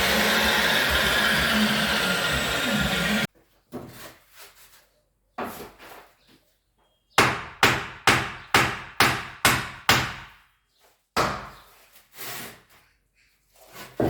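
A loud steady motor noise from a power tool runs for about three seconds and cuts off suddenly. Then come scattered knocks and a quick run of about nine hammer blows on wood, about three a second, with a few more knocks after. The hammering is wooden boards being set as formwork for a window sill.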